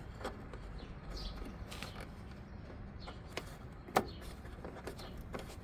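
Scattered light clicks and taps of small bolts being fitted by hand to secure a blower motor resistor, with one sharper click about four seconds in.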